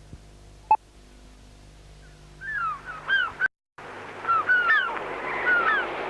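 Birds calling over an open-air hiss: from about halfway, a string of short, repeated calls that swoop up and then fall, with the hiss growing louder. Before that, a faint hum and one short, clear tone about a second in.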